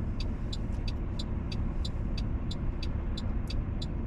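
Steady low rumble inside a car's cabin as it idles, stopped at a red light, with a rapid, regular ticking over it.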